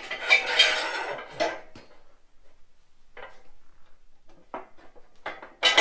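Metal parts clanking and knocking as they are handled: a busy cluster of clanks with a little ringing in the first second and a half, then a few separate knocks, the loudest just before the end.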